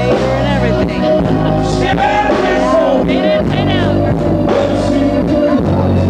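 Live blues-rock band playing loud, with a singing voice over bass and drums.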